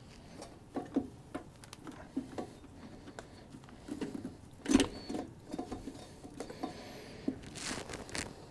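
Insulated wires being pulled and handled inside a traffic signal housing: scattered rustling, scraping and light clicks, with one louder knock about halfway through.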